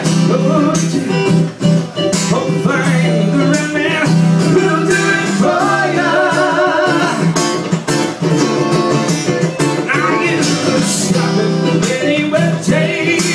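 Live music: a strummed acoustic guitar and a second guitar, with a man singing.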